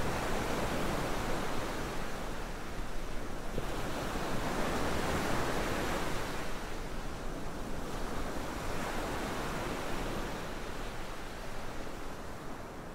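Ocean surf: waves washing in and drawing back in slow swells every few seconds, gradually growing quieter toward the end.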